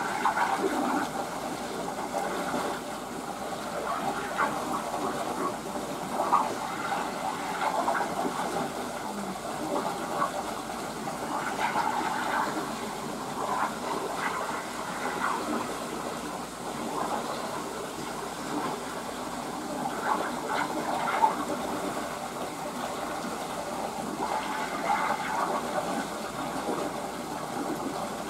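Running water in a pool: a steady gushing rush with small flickering splashes.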